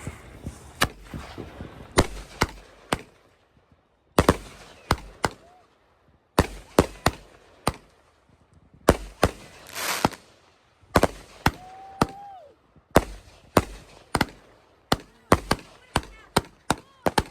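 Consumer fireworks going off: an irregular string of sharp bangs in quick clusters, with a hissing, crackling stretch about nine seconds in and a short whistle a couple of seconds later.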